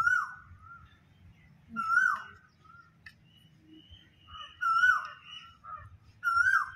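A bird calling four times, about every one and a half to two seconds, each short call dropping in pitch at its end.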